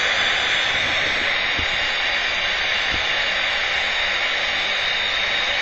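Steady static-like hiss from an RF/microwave detector's audible alarm, set off by the strong radio-frequency field of a ferrite resonator running near 1.1 MHz.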